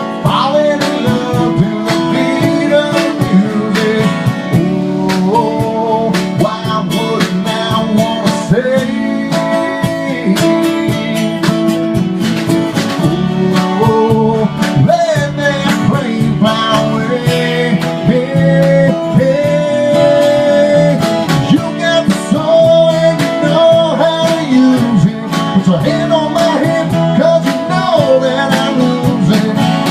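A country band playing live: guitar with a sung vocal line.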